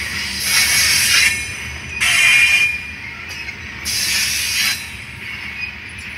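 Freight train of covered grain hoppers rolling past with a steady rumble, its wheels squealing in three high-pitched bursts about a second apart.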